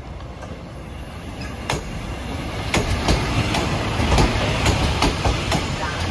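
Train passing close by, its wheels clacking over rail joints above a low rumble. It grows louder over the first three seconds, then stays loud.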